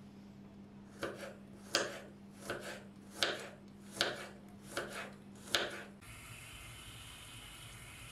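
Kitchen knife chopping onion on a wooden cutting board: seven slow chops, about one every three-quarters of a second. Then a steady hiss for the last two seconds.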